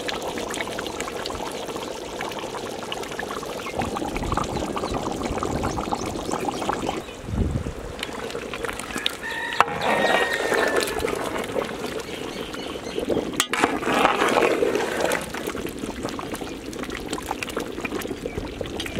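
Fresh cream pouring in a thin stream into a large pot of chicken curry, then, from about halfway, the thick gravy sloshing as a paddle stirs the cream through.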